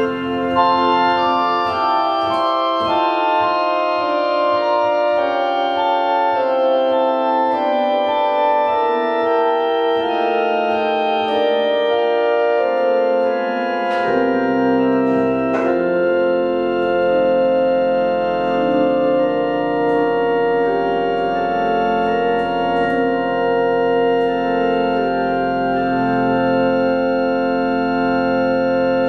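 Organ music played in slow, held chords; deep bass notes come in about halfway through.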